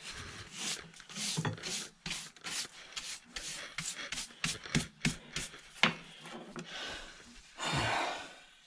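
Hand scraping and rubbing at the cast-iron flue outlet of a Rayburn cooker: a quick run of short scraping strokes, about three a second, then one longer stroke near the end.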